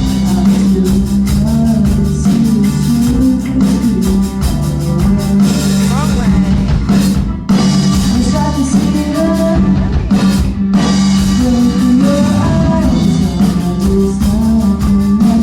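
Loud live rock band playing: drums, guitar and a held low bass note under singing, with a brief break about halfway through.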